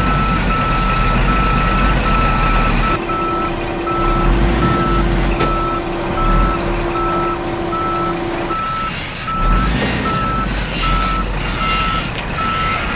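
Truck reversing alarm beeping at an even pace over a heavy vehicle's low engine rumble. A steady hum joins from about three seconds in and stops about eight and a half seconds in.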